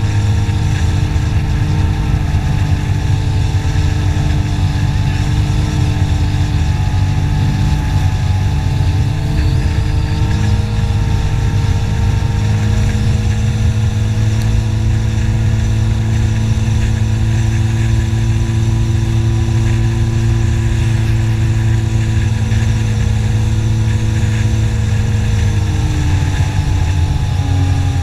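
Jet ski engine running steadily at cruising speed, its pitch holding almost level and easing down slightly near the end.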